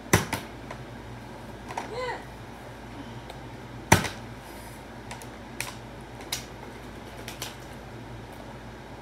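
Plastic water bottle tossed in bottle flips and clattering onto a tile floor: a quick double knock at the start and a louder knock about four seconds in, followed by a few lighter clicks as the bottle is handled. A brief voice sound about two seconds in.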